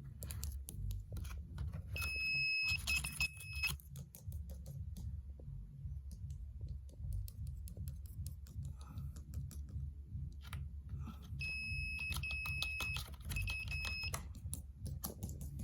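Homemade burglar alarm's electronic buzzer beeping with a high, steady tone in two spells about ten seconds apart, each one longer beep followed by a few short ones. Clicking and handling rustle run underneath.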